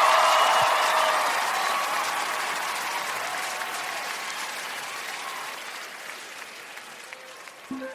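Live audience applauding and cheering, loudest at first and fading away steadily; music comes in just at the end.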